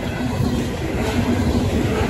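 Freight train of covered hopper cars rolling past at the crossing: a steady rumble of steel wheels on the rails.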